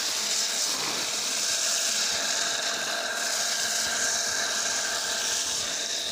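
Water gushing steadily from the open end of a lay-flat hose and splashing onto a paved road, a continuous hiss.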